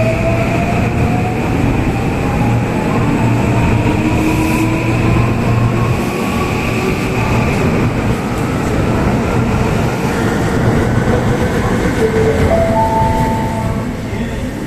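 Electric train running, its traction motor whine rising steadily in pitch as it gathers speed, over loud rumbling running noise. About twelve seconds in, a few short stepped tones sound as the whine changes.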